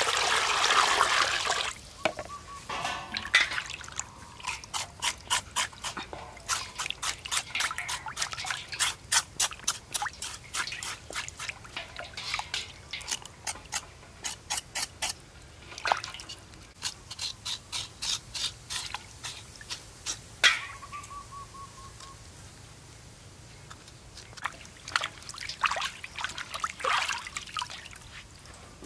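Water poured into a stainless steel bowl over a raw pork leg for about two seconds. Then many short splashes and drips as the leg is washed and lifted by hand in the water, thinning out near the end.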